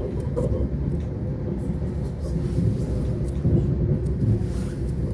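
Lastochka electric train heard from inside a passenger car while running: a steady low rumble of wheels and running gear, with a few light knocks from the track.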